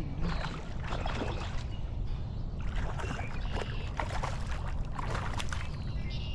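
Water splashing beside a kayak in irregular short bursts, over a steady low rumble.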